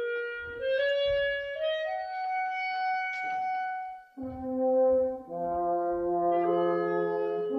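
Live woodwinds play a slow rising line of held notes, stepping up in pitch. About four seconds in, brass with a French horn takes over with low, sustained notes sounding together.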